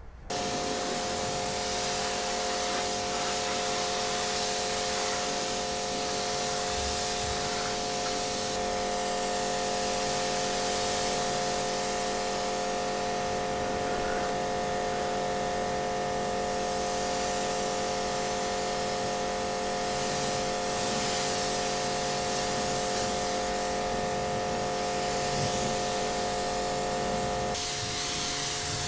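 Electric detailing machine running steadily, a motor hum with a hiss that swells and fades. It starts suddenly just after the beginning and changes near the end.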